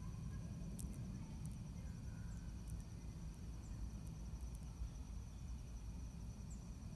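Quiet outdoor background: a low rumble with a steady, high-pitched pulsing insect trill, and a few faint sharp ticks scattered through.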